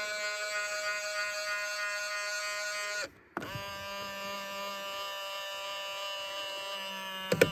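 Power side-mirror motor of a 2000 Ford Explorer buzzing as the mirror moves, a steady high-pitched whine: the funny noise the mirrors make. It cuts out about three seconds in, starts again moments later, and right at the end breaks into a rapid stutter.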